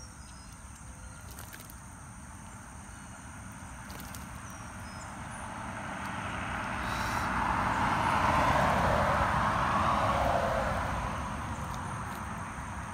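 A road vehicle passing: a rushing tyre-and-engine noise that swells to its loudest about eight seconds in, then fades away with a falling pitch.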